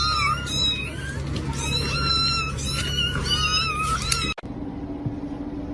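A cat meowing over and over in short, high-pitched calls. The calls cut off abruptly about four seconds in, leaving a faint steady hum.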